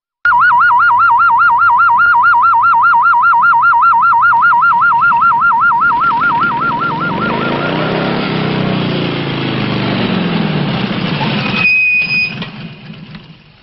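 Air-raid siren sounding a fast warbling attack warning, about five wobbles a second. From about six seconds in, a loud rushing roar swells and fades like a jet aircraft passing overhead. It cuts off abruptly near the end with a brief high tone and fades away.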